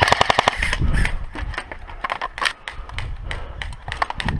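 Airsoft guns firing: a rapid full-auto burst of about a dozen snapping shots at the start, then scattered single shots and short bursts.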